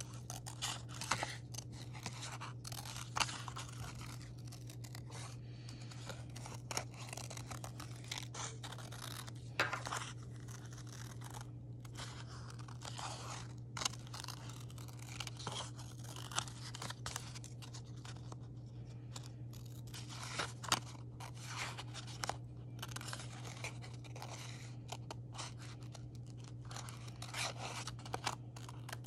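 Scissors snipping through drawing paper in short, irregular cuts, over a steady low hum.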